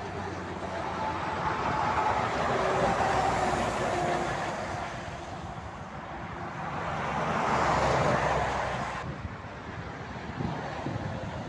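Motorway traffic: vehicles passing, the tyre and engine noise swelling and fading twice, about three and eight seconds in, with a faint tone dropping in pitch as the first one goes by.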